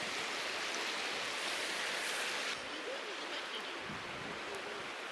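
Steady rushing of a mountain stream. Its hiss thins out abruptly about two and a half seconds in.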